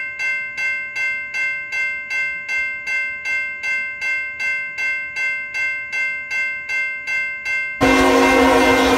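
Railroad crossing bell ringing steadily at about two and a half strikes a second. About 8 seconds in a louder train horn cuts in over it.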